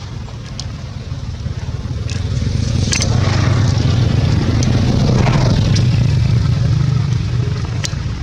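A motor vehicle's engine rumbling, growing louder from about two seconds in and easing off near the end, as if passing close by.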